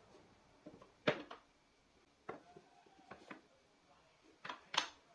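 Wooden strips knocking and clacking against a wooden 45° corner jig as they are set into place by hand: a handful of light, sharp knocks, the loudest about a second in and near the end.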